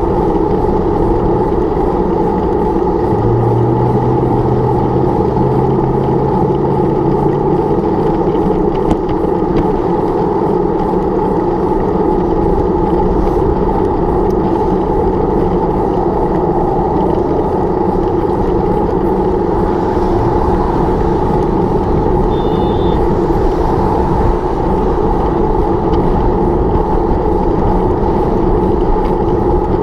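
Steady wind and road-traffic noise picked up by a camera on a moving bicycle, with a low steady hum for a few seconds near the start.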